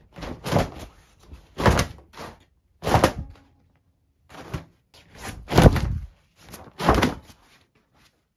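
Damp laundry being shaken out and hung on a pull-out metal drying rack: a quick irregular series of sharp flaps and thumps, about a dozen, with quiet gaps between.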